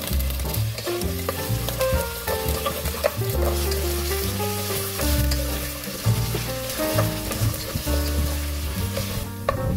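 Diced potatoes and carrots frying in hot oil in a pot, sizzling steadily while a wooden spatula stirs and scrapes them. The sizzle cuts off just before the end.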